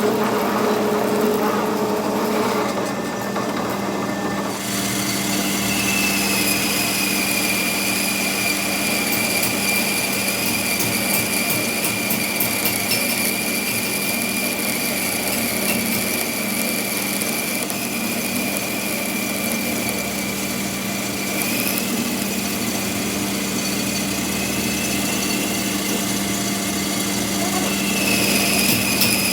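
A workshop power tool running steadily with a high whine, which comes in about four seconds in over a constant low hum.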